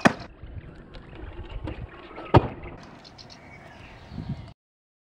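Two sharp clacks of a stunt scooter's wheels and deck landing on asphalt, about two and a half seconds apart, over a low rumble.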